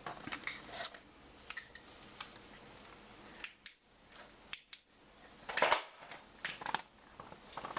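Scattered metallic clicks and clinks from a dishwasher being tugged to pull it out of its cabinet opening, with a louder clatter about five and a half seconds in.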